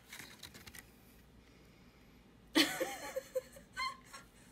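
Faint rustling of a paper card being handled, then about two and a half seconds in a woman's short laugh of disbelief, loud and breathy.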